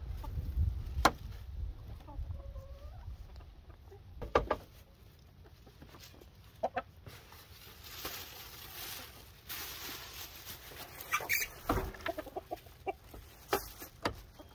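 Chickens clucking, with a few sharp knocks and the rustle of a plastic bag while eggs are gathered from the coop.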